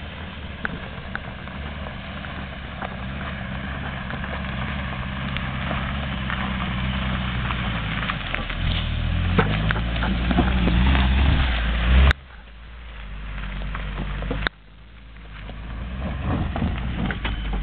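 Mitsubishi Pajero Pinin's engine running under load on an off-road track, with scattered short clicks and crunches over it. The engine grows steadily louder until the sound cuts off abruptly about twelve seconds in. It drops again at about fourteen and a half seconds, then builds back up.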